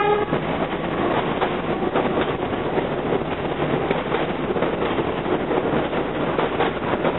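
R68 subway train leaving an elevated station, its steel wheels clicking over the rail joints under a steady running noise.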